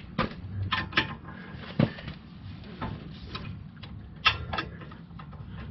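Irregular metallic clicks and clanks of a socket and long ratchet being fitted and worked on a caliper bracket bolt, with the sharpest knocks a little under two seconds in and just past four seconds.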